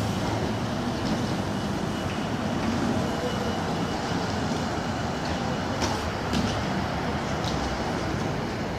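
Steady city street traffic noise as an articulated city bus drives past through the junction and on down the street. A few short clicks come around six to seven seconds in.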